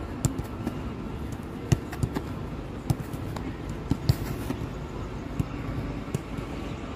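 Footballs being kicked on a training pitch: about eight irregular sharp thumps over a steady low rumble.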